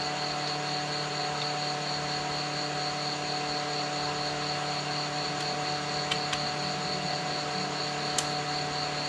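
A steady motor-like hum with a faint high whine above it, with a few light clicks about two-thirds of the way in.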